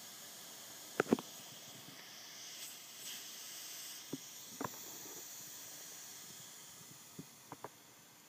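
Air hissing steadily from a leaking valve fitting on a pressurised hyperbaric oxygen chamber, growing a little fainter near the end. A few short sharp taps and knocks of handling come through it, a double one about a second in being the loudest.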